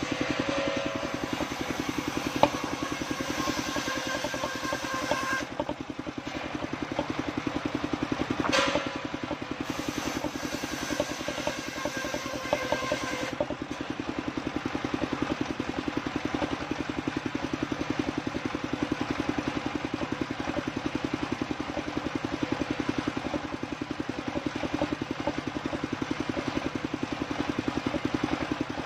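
Engine-driven table circular saw running steadily while its blade rips waru wood planks into battens. The cutting rasp rises over the engine's even chugging in two stretches, at the start and again from about a third of the way in, with one sharp knock where the second begins.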